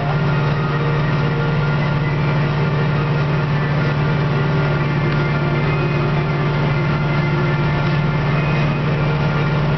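Deutz-Fahr tractor's diesel engine running steadily under way on the road, heard from inside the cab as a loud, even drone.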